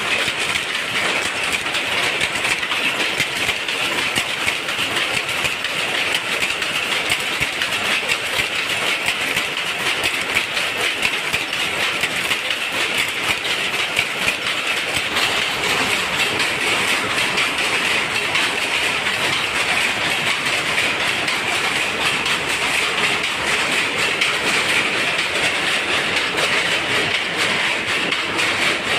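Power loom running: a loud, steady mechanical clatter of rapid beats without a pause.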